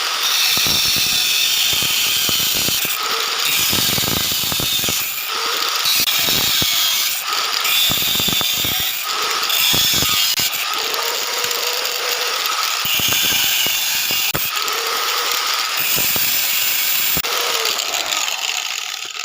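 Electric power cutter running continuously as it cuts through the steel spokes of a motorcycle's 36-spoke rear wheel, its motor note dropping and recovering again and again as it bites into each spoke.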